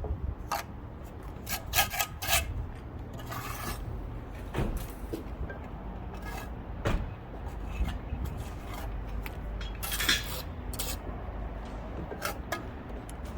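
Hand masonry work: irregular scraping and a few sharp knocks of stone and trowel, over a steady low rumble.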